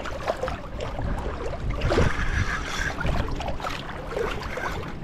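Wind buffeting the microphone over shallow water, with water sloshing and splashing close by as a person wades and fights a fish on a spinning rod.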